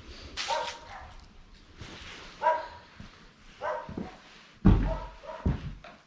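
A dog barking, several short barks about a second apart, with a loud low thud near the end.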